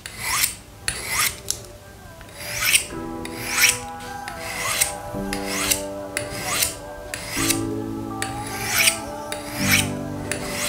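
Steel blade of a Swiss Army knife being drawn repeatedly across a Victorinox Dual-Knife pocket sharpener: short scraping strokes about one and a half times a second, sharpening a blunt edge.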